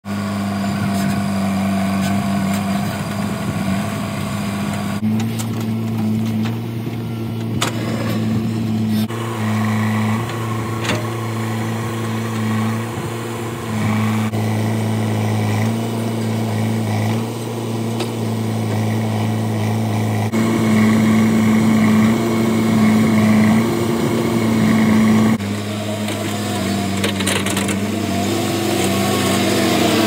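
Diesel engine of a JCB backhoe loader running steadily while it digs and loads earth. The engine note changes abruptly several times, and near the end an engine revs up with a rising pitch.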